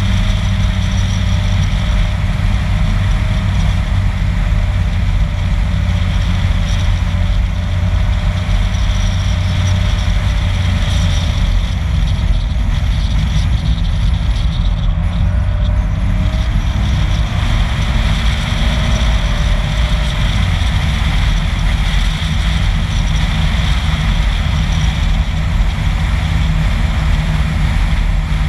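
Vehicle cruising at a steady speed: a steady engine drone with tyre and wind noise.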